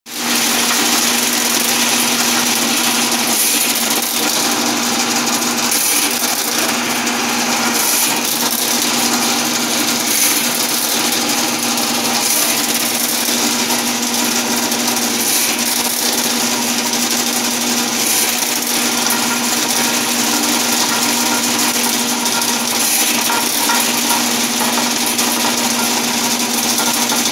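Electric drum-type drain cleaning machine (sewer snake) running steadily with a constant motor hum, its spinning steel cable rattling and clicking inside the drain line as it cuts through tree roots clogging the sewer.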